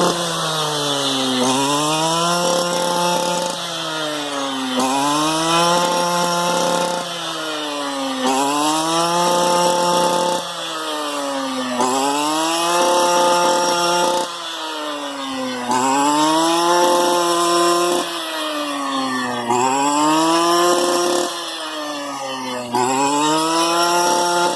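STIHL FR 230 two-stroke brush cutter engine revving up and dropping back over and over, about once every one and a half to two seconds.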